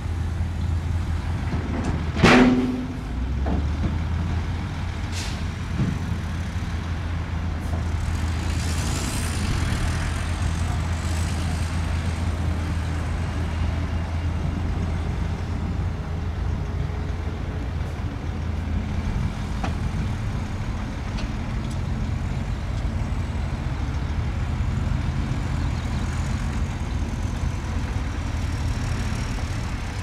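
Heavy diesel dump truck engines running steadily at low revs, with a single brief loud burst about two seconds in.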